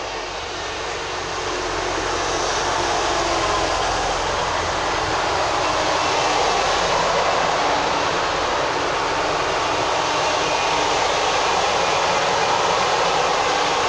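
TransPennine Express Class 185 diesel multiple unit (185107) arriving and rolling slowly along the platform as it draws to a stop, its diesel engines running under the cars. The sound grows louder over the first two seconds as the train comes alongside, then holds steady.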